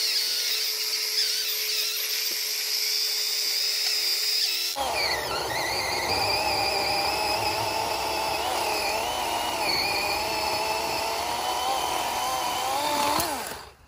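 DeWalt 12-inch cordless electric chainsaw running with a steady whine. About five seconds in it bites into a log: the pitch drops and wavers under load, with the rough chatter of the chain cutting wood. Near the end the pitch rises as it finishes the cut, then the motor stops abruptly.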